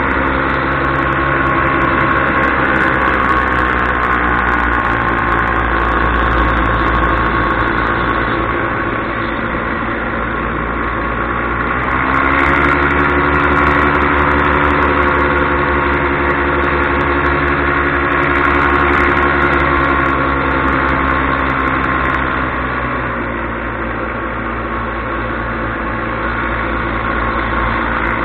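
Paramotor engine and propeller running steadily in flight. The engine speeds up a little before halfway and slows again about ten seconds later.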